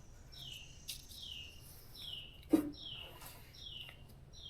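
A bird calling over and over, a short downward-sliding note about twice a second, with a single sharp knock about two and a half seconds in.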